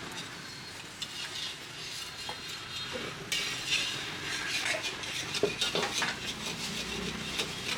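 Metal utensils clinking and scraping in a pan over the sizzle of frying, as savory crispy pancakes are cooked; the sizzle grows louder about three seconds in.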